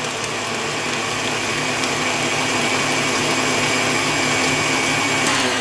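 KitchenAid Artisan stand mixer running steadily at medium speed, its flat beater working an egg into creamed butter and sugar in the steel bowl. A faint high whine in the motor sound drops away shortly before the end as the mixer slows.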